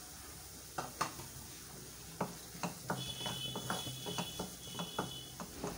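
Spatula scraping and tapping against a non-stick kadhai while stirring chopped onion and capsicum, over a faint sizzle. Two clicks come about a second in, then a run of strokes, two or three a second, from about two seconds in.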